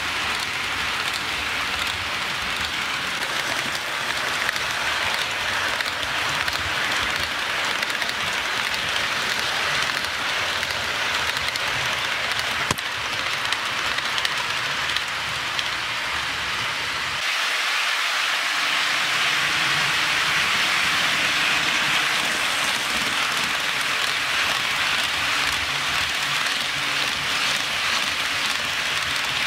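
HO scale model train rolling over sectional track with plastic roadbed, a steady rain-like hiss and rattle of wheels on rail with a few light clicks. About two-thirds of the way through, the low rumble drops out abruptly and the hiss gets louder.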